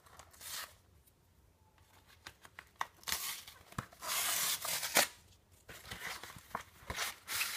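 A paperboard Priority Mail flat rate envelope being handled and torn open: several ripping tears, the longest about four seconds in, among crinkling and small sharp knocks.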